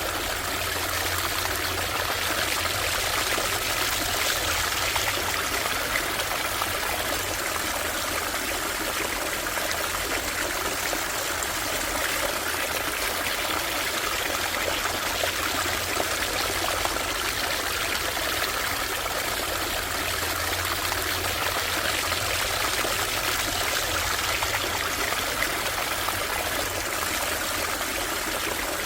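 Brook water running and trickling in a steady, unbroken flow.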